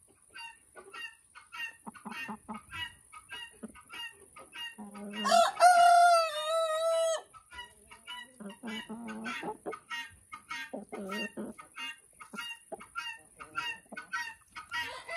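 Chickens clucking in short repeated calls, with a rooster crowing loudly about five seconds in, its call rising and then held for about two seconds.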